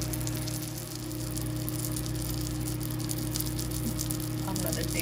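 An egg omelette frying in olive oil in a nonstick pan: a steady sizzle with fine crackling, over a steady low hum.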